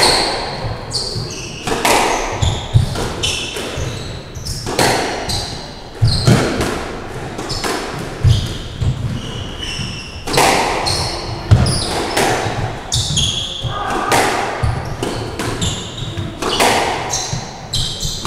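Squash rally: the ball cracking off the rackets and court walls at irregular intervals, with players' shoes squeaking on the wooden court floor. The hits echo in the enclosed court.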